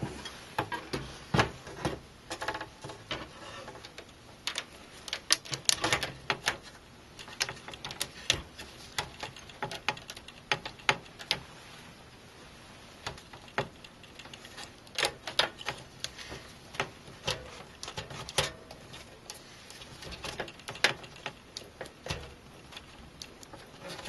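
Irregular light clicks and taps as an ASUS Rampage V Extreme X99 motherboard is lowered into a metal PC case and nudged into place over its standoffs.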